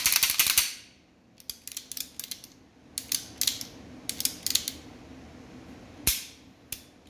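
Beretta 92F pistol's slide and action worked by hand, freshly cleaned and oiled and now running freely: clusters of metallic clicks and slide rattles, loudest at the start, with a single sharp snap about six seconds in.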